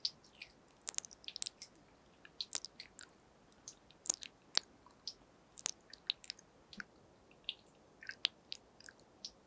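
ASMR mouth sounds recorded close to a binaural microphone: wet clicks and pops of the tongue and lips, coming irregularly several times a second.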